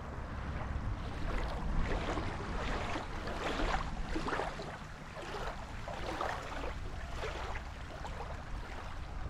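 Small waves lapping and splashing against a gravelly lake shore, in irregular splashes every half second to a second, over a steady wind rumble on the microphone.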